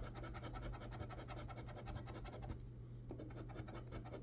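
A coin scratching the coating off a lottery scratch-off ticket: a quick, even run of faint rasping strokes, with a short pause about two and a half seconds in.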